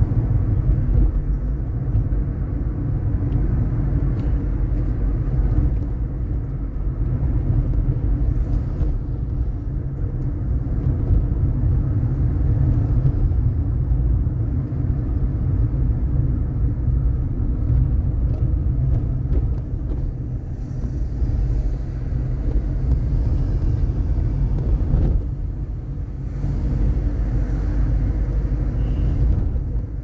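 Steady low rumble of engine and road noise heard inside the cabin of a moving car.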